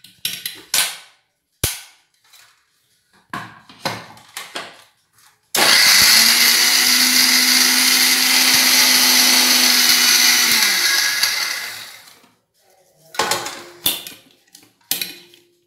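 Sujata mixer grinder running for about five seconds, grinding roasted coconut in its steel jar, then winding down after it is switched off. Before and after the run, knocks and clicks of the steel jar and its lid being set on the base and lifted off.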